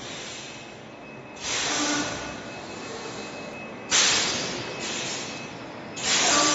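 Bag-in-box bag making machine running, with three loud hisses of air about two seconds apart, each starting sharply and tailing off over a steady machine background.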